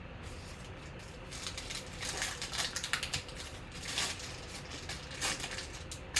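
Foil wrapper of a 2021 Panini Prizm football card pack crinkling and tearing as it is ripped open by hand: an irregular run of crackles from about a second and a half in until past five seconds.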